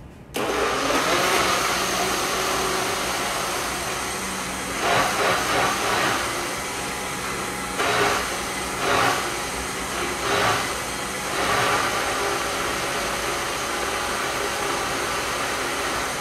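Countertop blender switched on high, its motor starting abruptly and then running steadily as it purées a cheese sauce; the sound swells in several short surges midway as the mixture churns.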